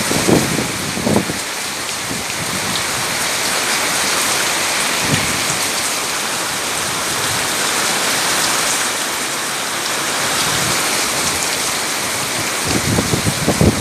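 Heavy rain pouring down in a tropical rainstorm, a dense steady hiss. A few short low rumbles, like gusts or knocks, come in the first second and again near the end.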